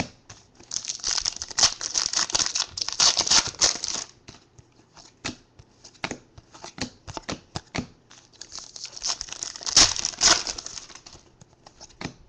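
Trading-card pack wrappers crinkling and tearing as packs are ripped open, in two busy stretches: about a second in and again around nine to ten seconds. In between come short clicks and slides of cards being flipped through by hand.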